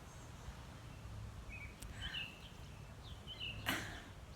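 Small birds chirping in short high calls a few times over a steady low outdoor hum. Near the end there is a single short, harsh cough from a neighbour.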